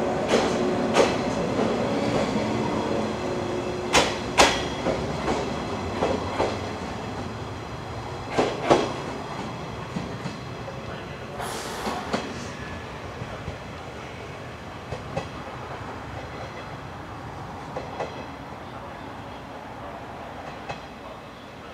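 Yellow 115-series electric train pulling away from the platform. A steady hum in the first few seconds gives way to wheels clicking over rail joints in close pairs, growing fainter as the train recedes.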